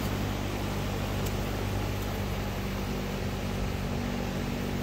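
Small quadcopter drone hovering, its propellers giving a steady hum of several low tones over an even hiss.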